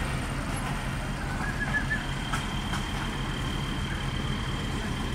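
Street traffic with vehicle engines idling, a steady low rumble. A faint, steady high-pitched tone joins about two seconds in.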